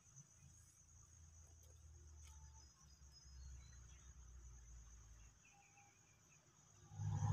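Faint steady high-pitched drone of insects, with a low rumble underneath and a short dull thump near the end.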